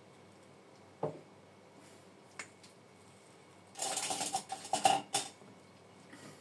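A metal teaspoon clinking and scraping against dishware while peanut butter is scooped and spread onto a pancake: a soft knock about a second in, then a busy stretch of clatter and scraping about four seconds in.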